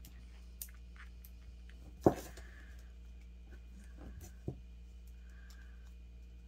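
Small handling sounds of a gel polish bottle and a plastic nail swatch stick on a tabletop: scattered light clicks and taps, with one sharper knock about two seconds in and a smaller one later, over a faint steady low hum.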